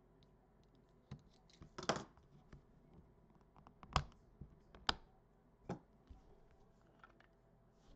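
A trading-card pack opened with a utility knife: the blade slits the plastic wrap. Then come a few sharp clicks and taps, about a second apart, as the stack of cards is pulled out and handled.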